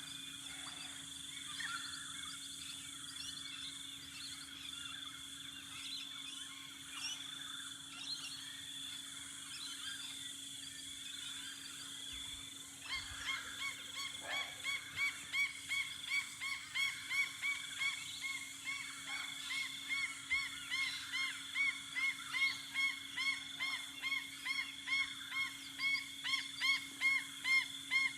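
Dawn birdsong: a mix of high chirps from several birds, then from about halfway one bird repeats the same call over and over, about one and a half times a second, growing louder.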